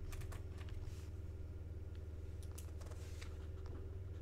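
Scattered faint clicks and taps of a stylus on a tablet screen as the pen tool is picked from a menu and ink is coloured in, over a steady low electrical hum.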